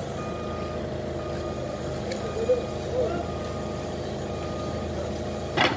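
Doosan forklift's engine running steadily, with its warning alarm beeping about once a second. A sharp knock near the end is the loudest sound.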